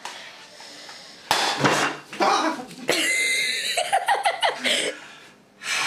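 A sudden pop about a second in as a water balloon bursts while being dipped in hot melted chocolate, followed by startled yelps and exclamations.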